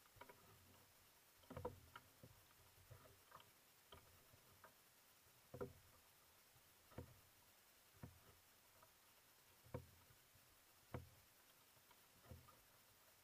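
Faint, sharp splashes of a kayak paddle blade dipping into the water, one stroke about every second or so, over a low steady hiss.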